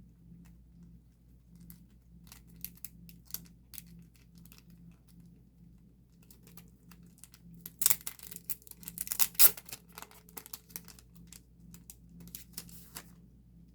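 Close-up rustling and crinkling of packaging being handled, with scattered small clicks and a louder, denser burst of crinkling about eight seconds in that lasts around two seconds.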